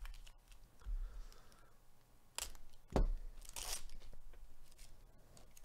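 Foil wrapper of a trading card pack being torn open and crinkled, with a soft thud about a second in and two sharp rips a little more than halfway through, the second one the loudest.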